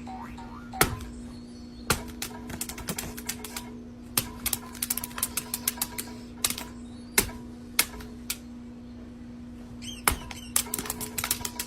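Sharp, irregular clicks and taps, some in quick clusters, over a steady low hum.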